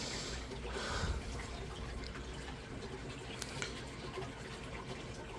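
Koi pond water running and trickling, a steady watery hiss with small drips and a brief louder gush about a second in, over a faint steady hum.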